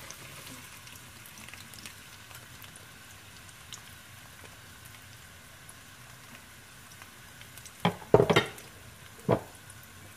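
Freshly added chopped onions sizzling in hot cooking oil with a steady fine crackle. A few loud clunks near the end.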